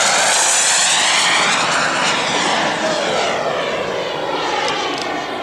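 Twin JetCat 120 model jet turbines of a large radio-controlled English Electric Lightning running at speed in a flypast: a loud, steady jet rush whose tone sweeps and shifts as the model passes, easing off slightly as it climbs away.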